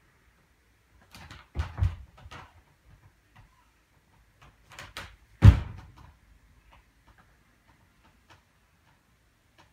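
Bare feet thudding onto a low practice balance beam: a quick pair of landings about a second and a half in, then a single heavier landing about five and a half seconds in, with a few light taps of footsteps between.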